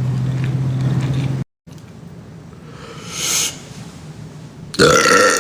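A man's long, low, steady burp that cuts off abruptly about a second and a half in. Another loud, short vocal burst comes near the end.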